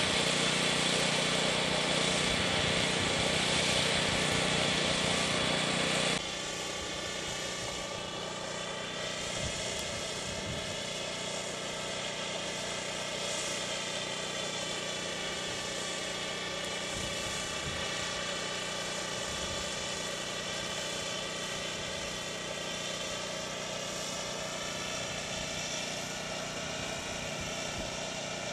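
A steady engine-like hum with noise over it. About six seconds in it drops abruptly to a quieter but otherwise similar steady hum.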